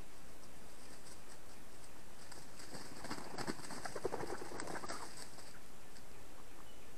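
Red junglefowl rooster flapping its wings as it flies down into the clearing: a burst of rapid wingbeats about three seconds in that lasts around two seconds.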